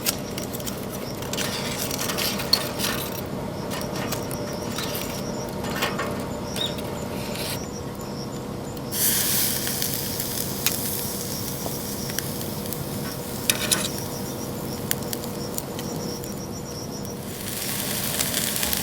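Steady sizzling and crackling noise with scattered sharp clicks, growing brighter and hissier for several seconds in the middle.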